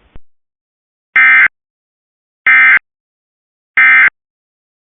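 Emergency Alert System end-of-message data bursts: three short, loud bursts of buzzy digital tones about a second and a half apart, the coded 'NNNN' signal that marks the end of the alert.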